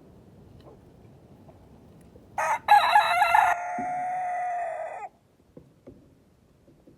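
Rooster crowing once: a short opening note, then a loud rough middle and a long held final note that cuts off about five seconds in.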